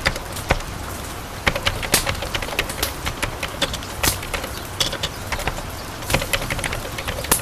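Irregular sharp clicks and taps, a few to several a second and uneven in loudness, over a steady low background noise.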